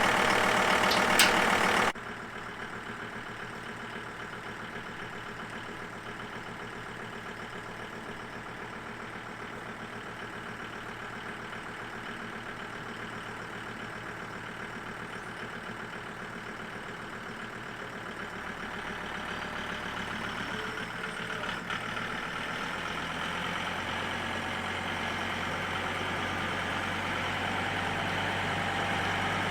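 Two-wheel-drive John Deere tractor engine running steadily. It is loud for about the first two seconds, then drops suddenly to a quieter level and grows gradually louder again through the second half.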